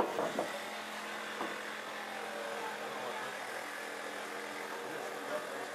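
Steady hum of room noise with a few faint knocks and clicks in the first second and a half, from lumber and a tape measure being handled.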